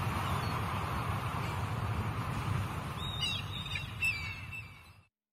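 Boat sound effect for a motor yacht: a steady low rumble with a rushing wash of water noise, and birds chirping over it from about three seconds in. It cuts off suddenly shortly before the end.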